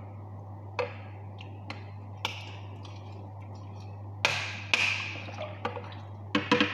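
A spoon clinking and tapping against a glass bowl while processed cheese is mashed and stirred into warm broth: scattered single taps, with a quick run of clinks and scraping about four seconds in.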